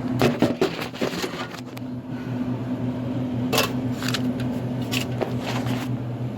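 A steady low hum with scattered clicks and rustles of handling over it.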